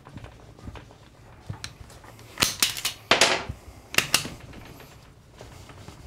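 Metallic clicks and clunks from a G-Force 101A four-speed transmission's shifter and input shaft being worked by hand to get it into second gear. There is a cluster of sharp clicks about two and a half seconds in, a short run of rapid clicks just after three seconds and two more loud clicks near four seconds.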